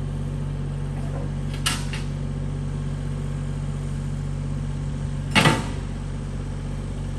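Engine running at a steady idle, with two sharp knocks, the second louder, about five seconds in, as a pine log is set down on the trailer.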